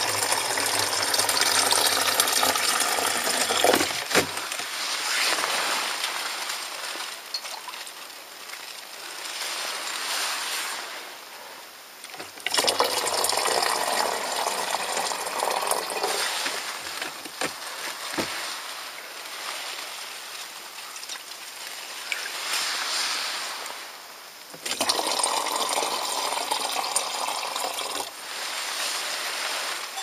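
Water poured from a metal mug into a plastic canister, three pours of a few seconds each, with quieter scooping and a few light clinks of the mug between them.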